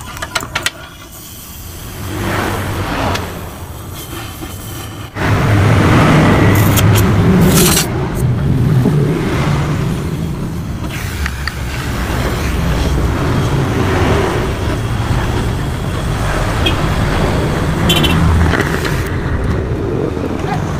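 A motorcycle engine running loudly, its note wavering unevenly. It cuts in suddenly about five seconds in, after a few clicks and a quieter stretch.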